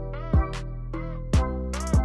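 Background music: an upbeat track with deep drum hits and sustained melodic notes.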